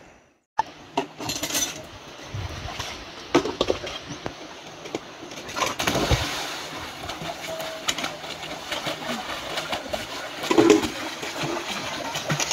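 Water splashing in a river as a child jumps in and swims, a series of irregular splashes over a steady background of moving water.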